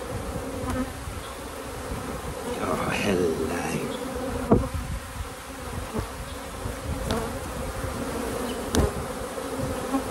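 Honeybees buzzing steadily around an open hive, with a few sharp clicks and knocks as a metal hive tool prises the wooden frames apart.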